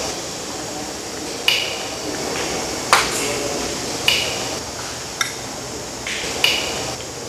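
Snapping shrimp in the mangrove mud snapping their claws: five sharp pops about a second apart, each like a finger snap.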